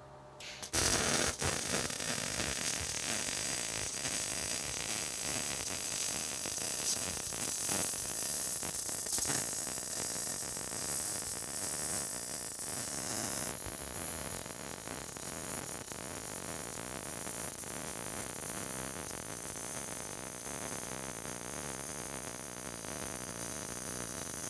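MIG welding arc with solid hard wire laying the root pass on a 5-inch pipe joint: the arc strikes under a second in and then runs as a steady crackling sizzle.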